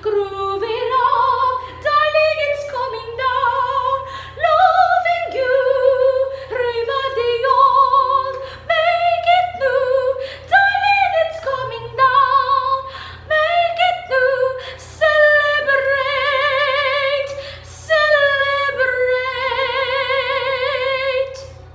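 A young woman sings unaccompanied in a mock-operatic style, with wide vibrato on held notes. Two long notes come near the end.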